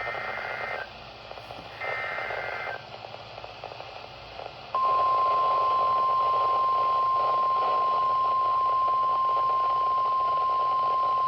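Emergency Alert System alert over weather radio, with static hiss: two short bursts of SAME header data tones, then about five seconds in the steady 1050 Hz NOAA Weather Radio warning alarm tone starts and holds. The tones announce an incoming special marine warning.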